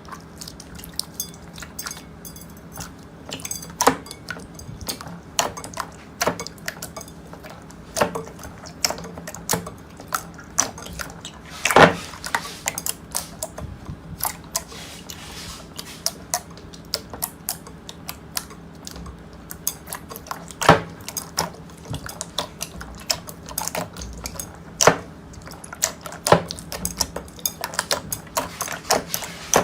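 Slime being squeezed and played with by hand, giving a dense run of irregular wet clicks and pops, the loudest about 12 and 21 seconds in.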